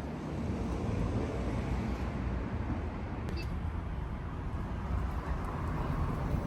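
Steady low rumble of a vehicle, with a faint tick about three seconds in.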